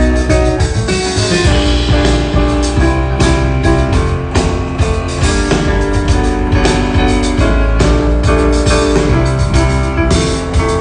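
Instrumental band music: piano playing over a drum kit, with a steady low bass line underneath.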